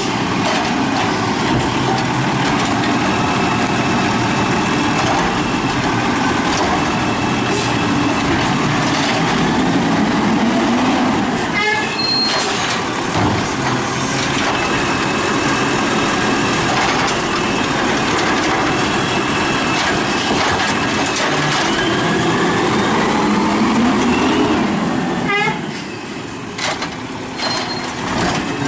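Diesel automated side-loader garbage truck (Scorpion body) running and revving as it moves along the curb, the engine rising and falling. There is a sharp air-brake hiss twice, about 12 seconds in and again about 25 seconds in.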